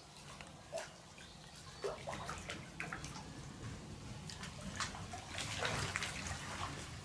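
Water splashing as a hooked fish thrashes at the surface of the pool and is scooped into a landing net. The splashes come singly at first and thicken into a burst of splashing near the end.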